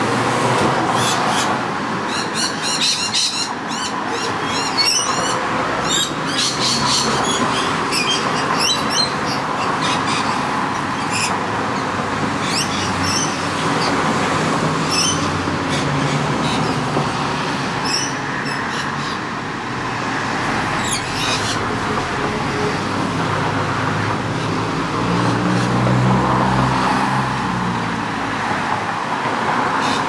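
Rainbow lorikeets giving short, high screeching chirps, many in quick succession through the first two-thirds, over steady urban traffic noise. Near the end a low engine drone swells and fades.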